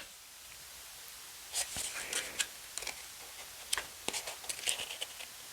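Pages of a small paper guidebook being leafed through: faint paper rustles and soft clicks, coming in short scattered bursts.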